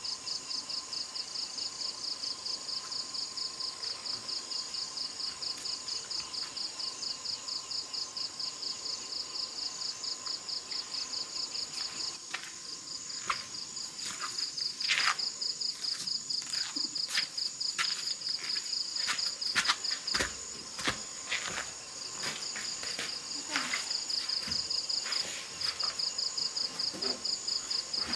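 Crickets chirping in a steady high pulsing trill, about four pulses a second. From about halfway through, a series of sharp clicks and knocks sounds over it.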